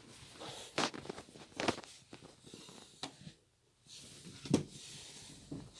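A few sharp knocks and clicks over faint rustling: objects being handled.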